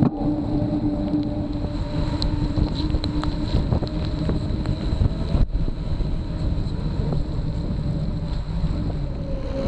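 Wind rushing over the microphone of a camera on a moving bicycle, mixed with the hiss of tyres rolling on wet pavement in the rain. A faint steady hum runs underneath, and the sound drops out briefly about five and a half seconds in.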